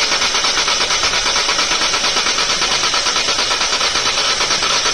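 Starter motor cranking a freshly rebuilt Hyundai Grand i10 engine over without it firing, in an even, fast, pulsing churn. It is being turned on the starter to push oil through the new oil pump and build oil pressure before it is started.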